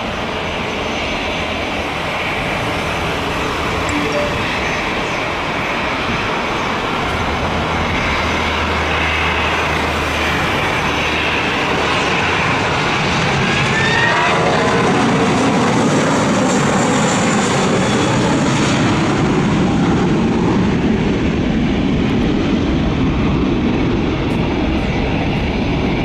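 Airbus A320 airliner's jet engines at go-around thrust as it aborts its landing, passing low overhead and climbing away. The sound swells as it passes, with a falling whine about fourteen seconds in, and stays loud as the aircraft climbs off.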